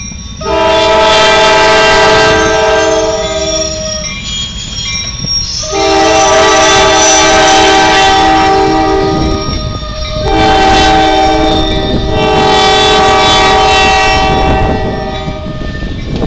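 Norfolk Southern diesel freight locomotive's air horn sounding a multi-note chord in three long blasts, over the steady rumble of the freight cars rolling past.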